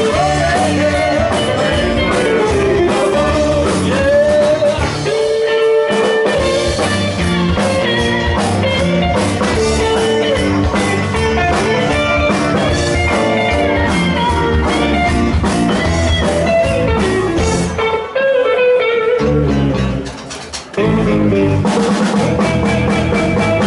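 Live rock band playing an instrumental break: an electric guitar plays bending lead lines over bass and drum kit. The band briefly drops out near the end, then comes back in.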